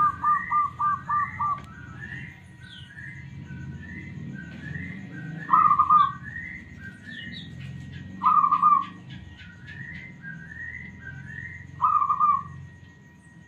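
Zebra dove (perkutut) cooing: a rapid run of about seven short staccato notes at the start, then three loud short coos spaced about three seconds apart. A fainter short rising note repeats about twice a second behind it.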